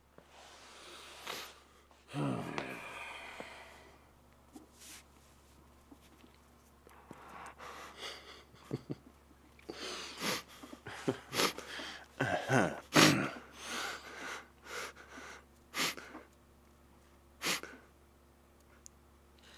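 A person's heavy breathing and gasps, with a falling groan about two seconds in and a cluster of short, sharp gasps and knocks between about ten and thirteen seconds.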